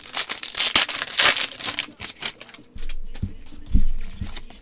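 Foil trading-card pack wrapper crinkling and cards clicking against each other as gloved hands open and sort them, with a couple of soft knocks later on.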